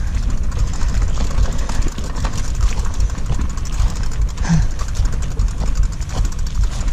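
Mountain bike rolling over a bumpy dirt trail: tyres on loose earth with the chain and frame rattling in quick irregular clicks over the bumps, under a deep steady rumble of wind on the handlebar-mounted camera's microphone.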